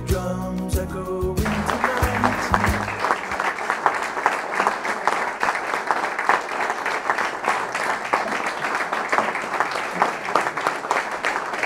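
Music that stops about a second and a half in, giving way to an audience applauding steadily.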